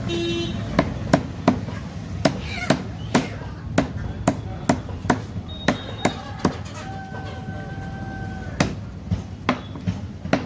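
Chicken being chopped with a heavy blade: sharp chops about two a second, pausing briefly about seven seconds in while a steady tone sounds.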